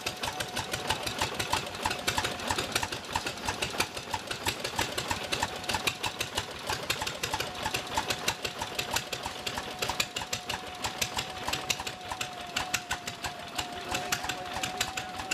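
Antique vertical single-cylinder stationary engine running steadily, with a rapid, even clicking and a steady high whine.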